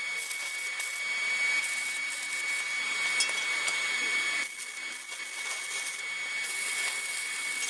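Stick welder's arc crackling as tack welds are laid on a steel frame of plate and rod: one weld, the arc breaking off about four and a half seconds in, then struck again for a second weld.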